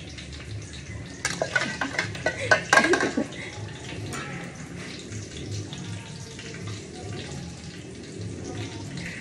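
Breaded pork cutlets deep-frying in oil with a steady sizzle. A quick run of sharp utensil clicks and knocks comes about one to three seconds in.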